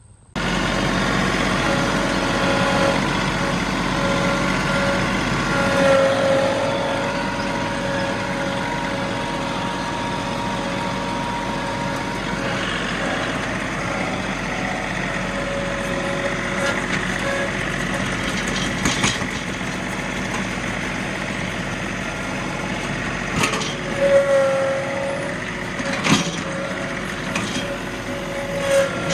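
Heavy machine engine running steadily under load, with a steady whine over it and a few sharp knocks and clanks in the second half.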